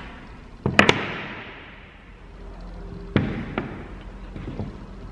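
Wooden flat-pack panels knocking together and being set down on a table: a sharp double knock about a second in, then two lighter knocks around three seconds in, each echoing in a large hall.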